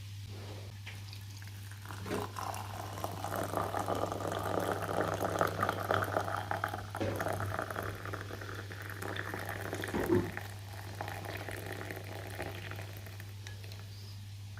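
A liquid sound, dense and crackling, that starts about two seconds in, swells and fades out after about ten seconds, with a sharp click near the end. A steady low hum runs underneath.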